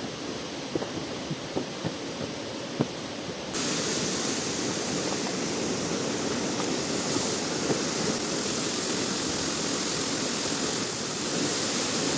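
Rushing water of a waterfall, a steady even wash with a few faint ticks early on. About three and a half seconds in it turns louder and brighter.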